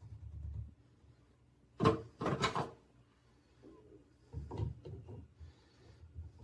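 A sharp knock followed by a short clatter, then a few softer knocks, like hard objects being set down or shifted.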